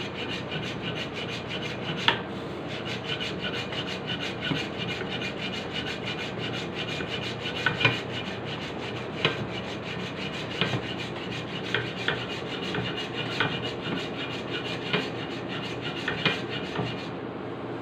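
Hand hacksaw rasping back and forth through a hard cast block in steady, continuous strokes, with a sharper scrape about every second and a half.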